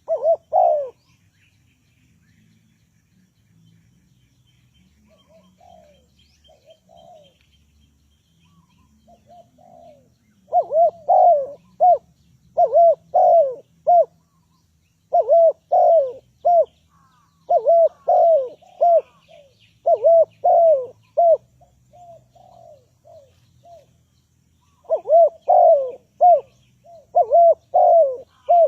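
Spotted doves cooing. There is a short loud coo at the start and softer cooing after it, then from about ten seconds in loud coo phrases repeat in runs with short gaps between them. A faint high twittering is heard briefly early on.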